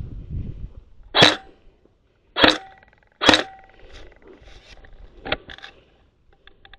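Three single airsoft gun shots about a second apart, each a sharp crack with a short ring after it, followed by a fainter click a couple of seconds later.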